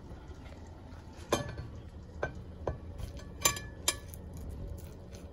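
About five sharp clinks and knocks of kitchenware, a cup against a pot and a china plate, while rice is scooped and served; the loudest comes a little past the middle.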